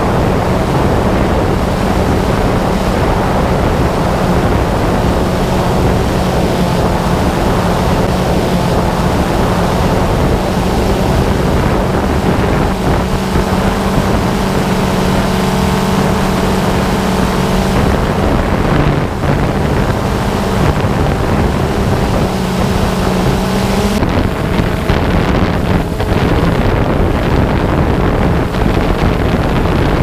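Camera drone's motors running with a steady hum, wind rushing over the microphone. About three-quarters of the way through the hum changes abruptly and the high hiss thins.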